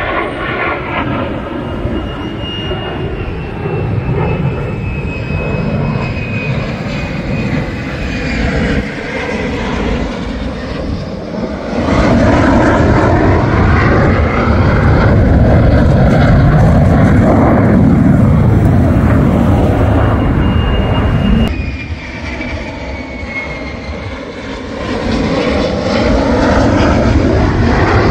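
F-35 Lightning II fighter jet flying low on approach with its landing gear down: a loud jet rumble with a thin high whine that slowly falls in pitch. It turns suddenly much louder about twelve seconds in and drops back again about twenty-one seconds in.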